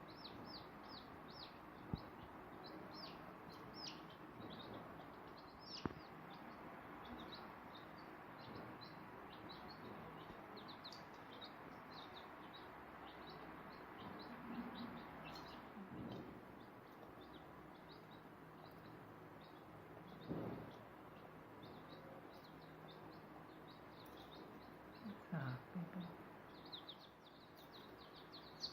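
Day-old chicks peeping in a dense run of short, high, falling chirps over a steady background hiss. Two sharp knocks come in the first few seconds.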